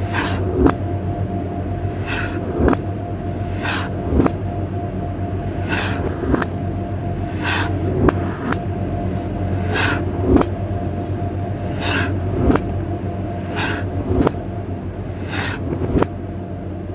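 A knife slicing through a crisp vegetable and knocking on the cutting board, about nine cuts at a slow, even pace of roughly one every one and a half to two seconds. Each cut is a crunch followed by a sharp knock, over a steady low hum.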